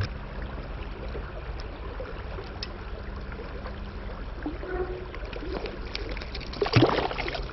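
Creek water running steadily, with a few faint clicks and a short loud burst of noise near the end.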